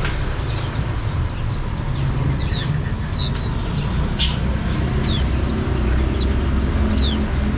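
Many caged small songbirds chirping together, a dense scatter of short, high, downward-sliding chirps several times a second, over a steady low rumble.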